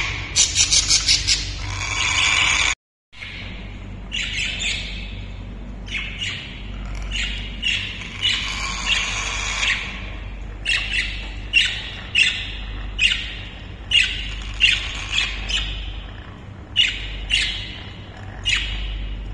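African grey parrot calling: a quick run of clipped squawks, then a series of short, sharp squawks and whistles repeated every half second to a second.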